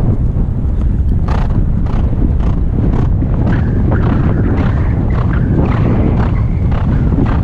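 A horse moving at a fast pace over grass, heard from the saddle: hoofbeats and stride noises about two to three times a second under a steady wind rumble on the microphone.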